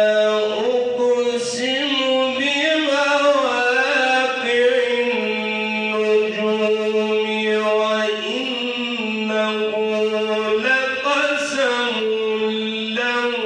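A man reciting the Quran in the melodic, chanted style, drawing out long held notes with ornamented turns of pitch into a microphone, with short pauses for breath between phrases.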